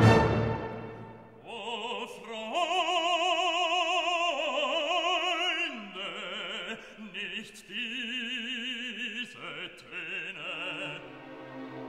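Classical background music: an orchestral chord dies away at the start, then an opera singer holds a series of long notes with strong vibrato.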